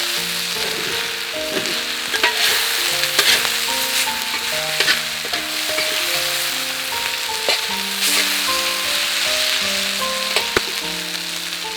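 Yakisoba frying on an iron griddle: a steady sizzle with a scattering of sharp clicks and scrapes. A soft melody of slow, held notes plays underneath as background music.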